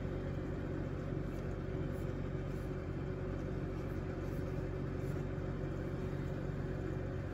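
Steady low machine hum that doesn't change, with a few faint ticks over it.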